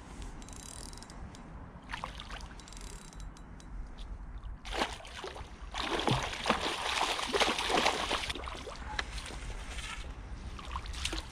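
A hooked pike thrashing and splashing at the water's surface close to the bank. The splashing starts near the middle and is loudest for about two seconds before it dies away.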